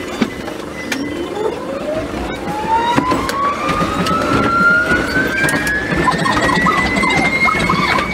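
Traction motor and gear whine of a Choshi Electric Railway 3000-series electric railcar (set 3001/3501), rising steadily in pitch as the train accelerates, over the rumble of the wheels on the track, heard from the driver's cab. The audio is sped up four times, so the acceleration is compressed into a few seconds.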